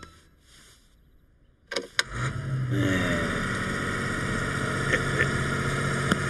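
Cartoon sound effect of a portable compressor's engine starting. After a second and a half of near silence, a few clanks come about two seconds in, then the engine catches, revs up briefly and settles into a steady run.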